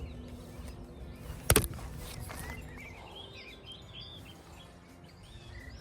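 A small songbird sings in short, quick chirping phrases, starting about three seconds in and again near the end. A single sharp, close knock comes about a second and a half in, and it is the loudest sound.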